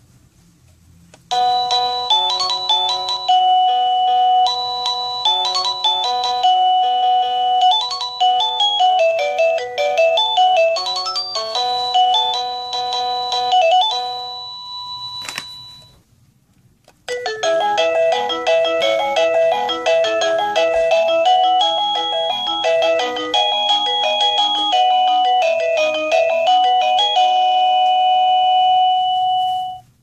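Wireless doorbell receiver playing one of its electronic chime melodies through its small speaker: a tune of simple, clear beeping notes that runs about thirteen seconds, stops briefly a little past halfway, then goes on for about another thirteen seconds before cutting off.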